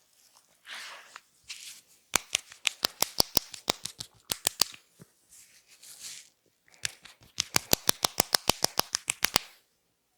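Barber's scissors snipping rapidly in the air: two runs of sharp, even clicks, about six a second, each lasting roughly two and a half seconds. A short rustle comes just before them.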